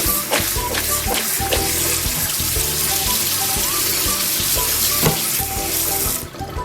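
Water running steadily from a kitchen tap, shut off abruptly about six seconds in, with light background music.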